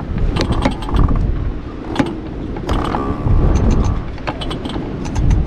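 Irregular mechanical clicks and creaks as a boat's mooring line is hauled in and taken up tight, over a low rumble of wind.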